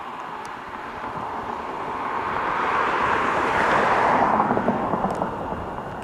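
A vehicle passing by outdoors: a steady rushing sound with no beat that grows to its loudest about four seconds in and then fades away.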